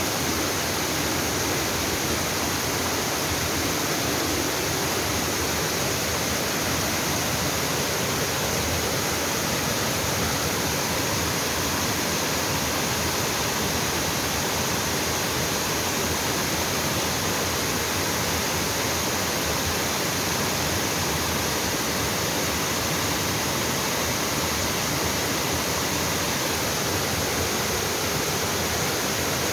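Waterfall pouring into a mountain stream, a steady rushing of water.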